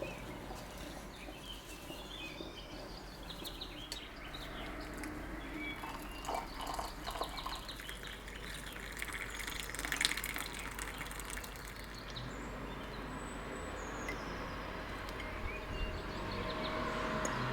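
Birds chirping faintly over steady background ambience, with a few scattered short household sounds and a brief rush of noise about ten seconds in.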